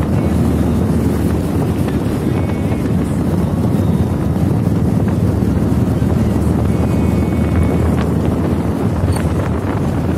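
Wind buffeting the microphone of a moving motorcycle, with the bike's engine running steadily underneath.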